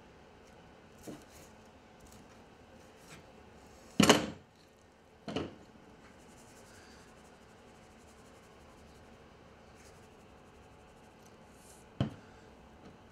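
A few separate knocks and thumps of cooking gear being handled on a wooden work surface: a light one about a second in, the loudest about four seconds in, another a second later, and a short sharp one near the end.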